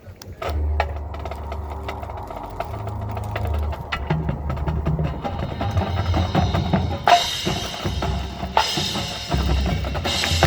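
Marching band playing: about half a second in the band enters with a held low brass chord over drums, and the music builds to three cymbal crashes in the last few seconds.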